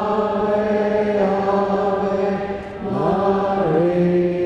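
Slow liturgical chant sung at Mass: long held notes on a low pitch. The note changes about a second in, then again near three seconds in with a short glide.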